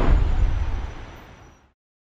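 Deep cinematic boom with a rumbling tail that fades away and cuts to dead silence a little under two seconds in.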